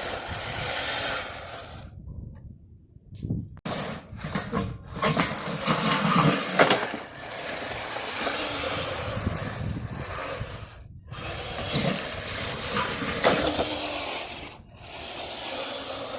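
Kyosho Blizzard 2.0 RC snowcat running, its motor and tracks making a rough, hissing mechanical rub, heard in several stretches broken off abruptly by short silences.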